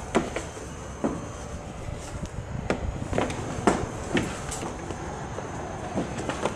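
Scattered short knocks and clicks, about half a dozen at irregular intervals, over a steady background hiss.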